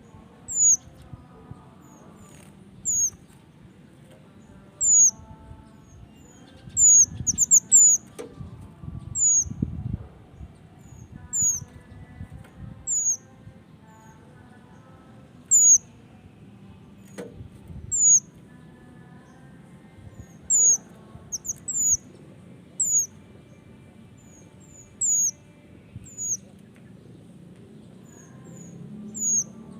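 Male small minivet (burung mantenan) calling with short, thin, high-pitched notes, one every second or two, sometimes several in quick succession.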